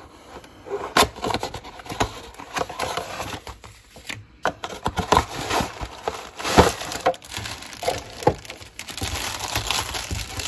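Cardboard plastic-model kit box being opened and its contents handled: irregular rustling and crinkling with sharp clicks and taps, the rustle growing denser near the end.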